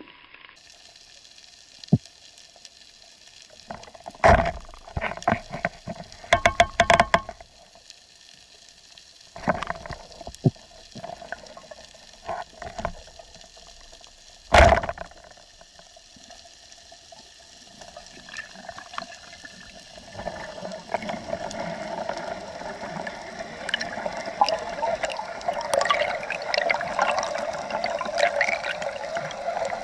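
Underwater sound heard through a housed action camera: a scattering of sharp clicks and knocks, the loudest about halfway through, then a rushing, bubbling water sound that swells toward the end.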